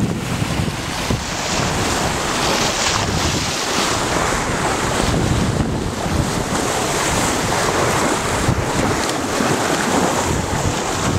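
Wind in a 15–20 knot breeze buffeting the microphone, over the rush of water along a sailboat's hull as it sails. Steady noise that swells and eases with the gusts and waves.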